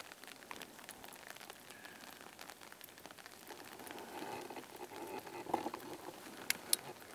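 Rain falling: a faint, even hiss of scattered drops, with a couple of sharper clicks near the end.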